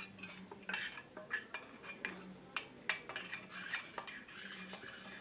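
A spoon clinking and scraping against cookware in irregular strokes, with the sharpest clinks about two and a half to four seconds in, as the spiced milk remedy is stirred and handled. A faint steady low hum runs underneath.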